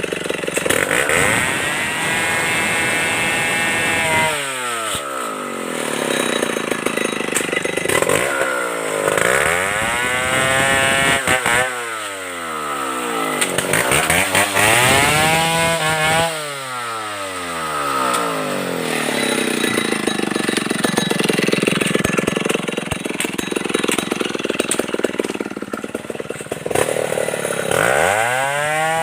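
Stihl 070 two-stroke chainsaw revving up and falling back toward idle several times, with a long stretch of steady high-speed running in the second half and another rev near the end.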